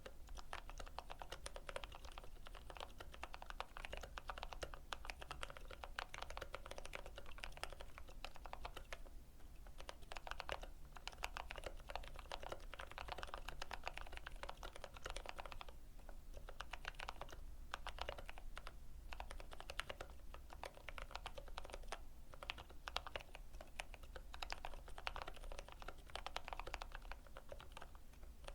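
Typing on a Keychron K8 mechanical keyboard with lubed brown switches: a fast, continuous patter of keystrokes, with a few short pauses, over a faint low hum.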